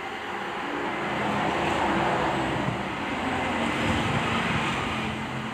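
Handheld heat gun blowing steadily while window tint film is shrunk onto a car windshield: a hiss of rushing air over a low motor hum, louder in the middle and easing off near the end.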